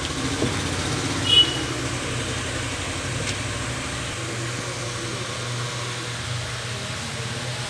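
A steady low mechanical hum, with a short high ping about a second and a half in.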